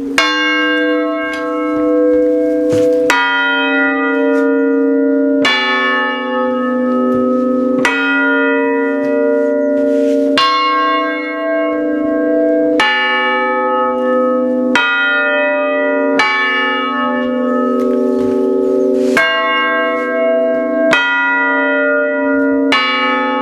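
Three dead-hung church bells struck in turn by Ellacombe chiming hammers, about one stroke every two seconds. Each stroke rings on at its own pitch until the next one.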